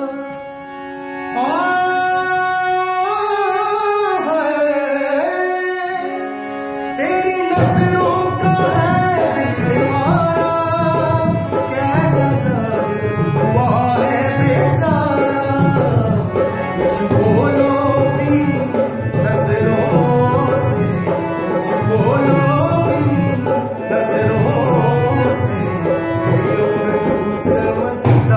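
Male voice singing a slow Hindi song, accompanying himself on a harmonium, with long held notes that bend in pitch. About seven seconds in, a fuller accompaniment with a steady beat comes in under the voice.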